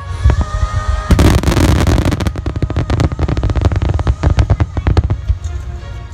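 Aerial firework shells bursting in quick succession, with a dense spell of crackling about a second in, over music.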